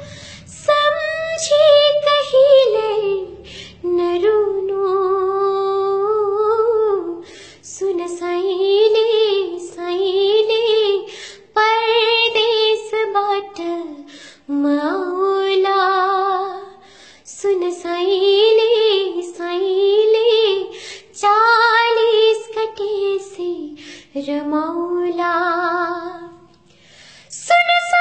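A woman singing a Nepali song unaccompanied. She sings in wavering, ornamented phrases of a few seconds each, with short pauses for breath between them.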